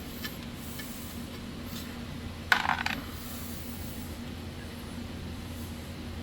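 A small metal part, such as a nut or hand tool, clinks once against metal about two and a half seconds in, ringing briefly. A steady low hum runs underneath.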